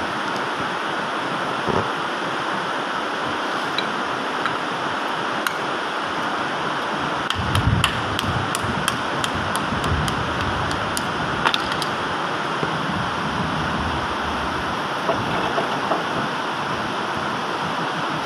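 Steady rushing background noise, with a run of sharp metal clicks and clinks, and a few dull knocks among them, in the middle stretch as tools and parts are handled at a forklift load wheel hub.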